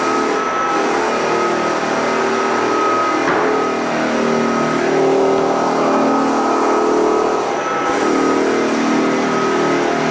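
Electric floor sander running steadily on bare wooden floorboards, a constant motor hum with a high whine whose pitch wavers slightly as the machine is worked back and forth.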